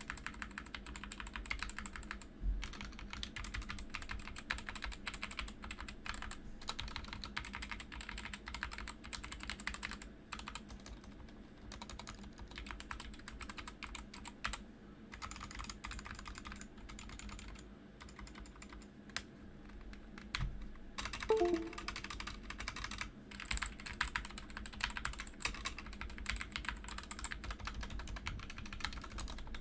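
Typing sound test on a GK61 60% mechanical keyboard with optical brown switches: a fast, continuous clatter of keystrokes with a few brief pauses.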